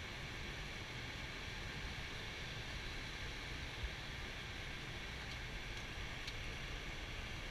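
Steady rushing noise of an Airbus A320 flight deck in flight, with a low rumble underneath and a faint click about four seconds in.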